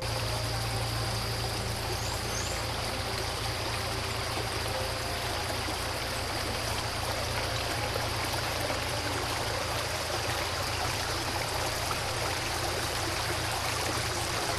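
Floodwater flowing with a steady, even rush that does not let up.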